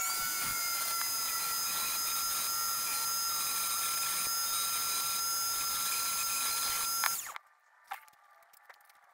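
Small rotary tool fitted with a tiny engraving burr, running at a steady high whine while engraving a brass end cap. It stops suddenly about seven seconds in, leaving a few faint clicks.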